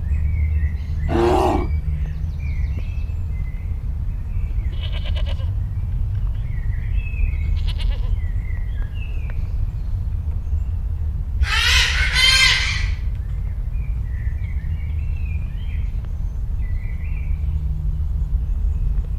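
A bleating farm animal calling a few times, the loudest and longest call wavering about twelve seconds in. Short faint high chirps come in between, over a steady low rumble.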